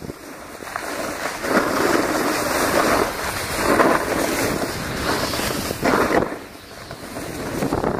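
Snowboard edges scraping and sliding over packed snow, swelling louder a few times as turns are carved, with wind rushing over the microphone.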